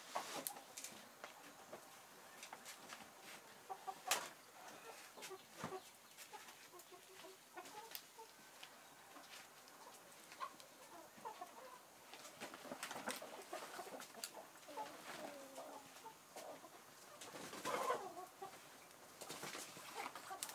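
Chickens clucking faintly, against scattered sharp clicks and rustling from a banana leaf being wilted over a crackling wood fire. The leaf rustle is loudest a little before the end.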